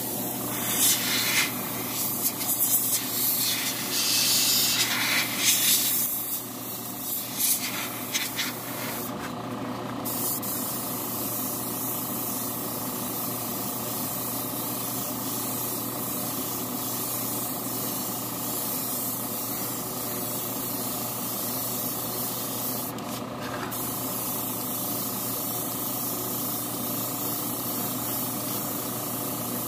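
Airbrush blowing air in several short, loud hissing blasts to dust off a model car body, then spraying a mica pearl mid coat with a steady hiss that stops briefly about three-quarters of the way through. A steady hum runs underneath.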